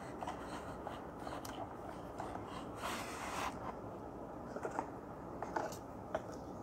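Paperboard box and paper inserts being handled: soft rustling and scraping, a short sliding scrape about three seconds in, and a few small taps and clicks.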